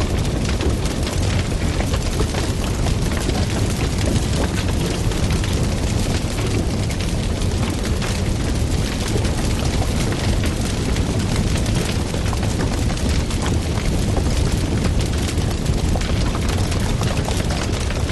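Wood fire burning loudly: a steady low roar with dense, continuous crackling.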